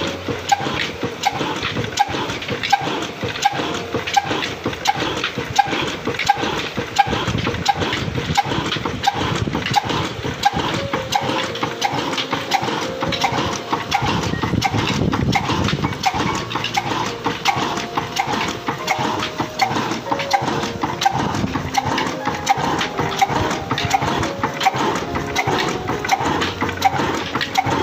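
Old black Ruston-type horizontal stationary engine with a large flywheel, running steadily: an even, unbroken rhythm of knocks from the engine.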